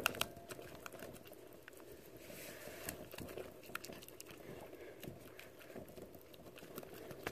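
Silicone spatula stirring a foamy mix of glue, hand soap and baby oil in a glass bowl: faint, irregular small wet clicks and smacks.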